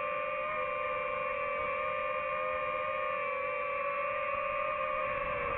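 DJI FPV drone's motors and propellers whining in a low hover, a steady stack of tones that wavers a little and dips in pitch near the end as the drone settles onto the grass.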